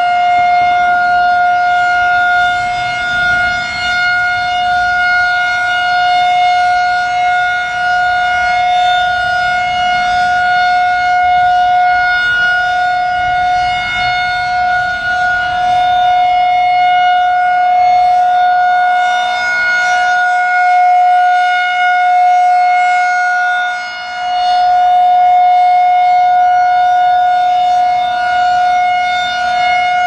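Federal Signal 2001-SRN rotating electromechanical warning siren sounding a steady alert tone at a constant pitch for a test, swelling and fading slightly in loudness as the horn turns.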